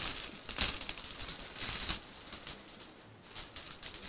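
Cat teaser toy jingling and rattling as it is shaken, in quick bursts with a faint ringing like a small bell; loudest in the first two seconds, then quieter with a few short shakes near the end.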